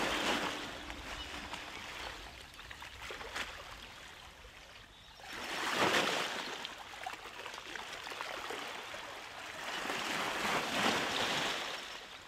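Sea waves washing in, a soft hiss of water that swells and ebbs twice, peaking about six seconds in and again near the end.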